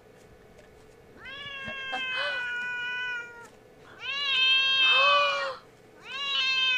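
Domestic cat giving three long, drawn-out angry yowls, the middle one the loudest with a hissing edge near its end: a hostile warning at a person reaching toward her.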